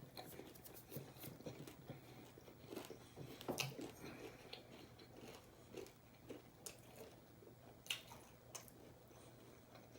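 Close-up chewing of deep-fried chicken breast tenders: faint, irregular crunches and mouth clicks, with louder bites about three and a half and eight seconds in.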